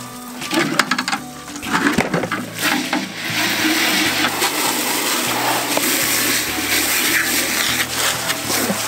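Water running from a garden hose and splashing into a tub being rinsed out, steady from about three seconds in, after a few knocks as the hose and tubs are handled. Background music plays underneath.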